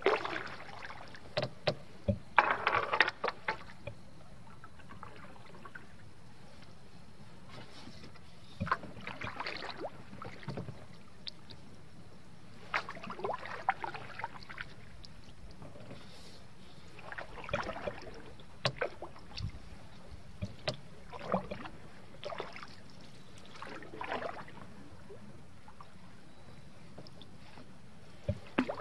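Canoe paddling: paddle strokes splashing and dripping in clusters every few seconds, with a few sharp knocks among them, over a steady background of moving water.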